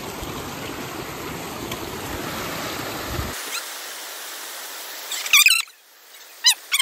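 Shallow water rushing over rocks for about three seconds, cut off sharply. Near the end come a few short, high, wavering sounds.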